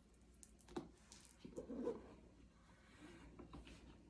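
Near silence in a small room, with a few faint clicks and soft rustles about a second in and near the middle.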